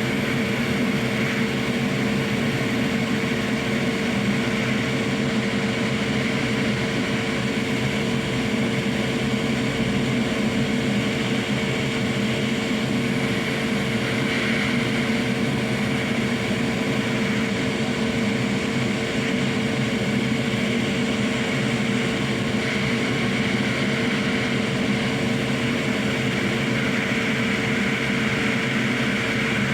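Hot air rework station blowing steadily over a PS5 motherboard, with a constant hum, as the solder is heated to lift off the old HDMI port.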